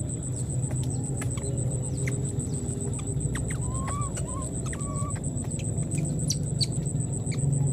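Outdoor ambience: a steady low hum, a steady high-pitched pulsing tone throughout, and a few faint short rising chirp-like calls with scattered small clicks.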